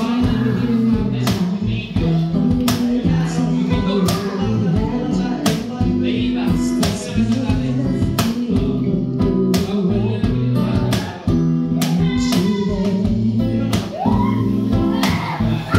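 Live acoustic music: an acoustic guitar strummed with a steady cajon beat under a singer's vocal.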